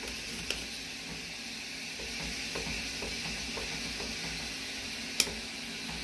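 Food sizzling steadily in a pot on high heat, with a few light ticks and one sharp click of a utensil against the pot a little after five seconds in.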